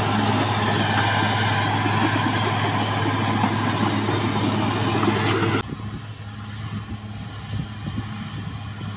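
CAT D6R XL bulldozer's diesel engine running steadily, with a strong low hum and a noisy mechanical clatter over it. About two-thirds of the way through, the sound drops suddenly to a quieter, duller rumble.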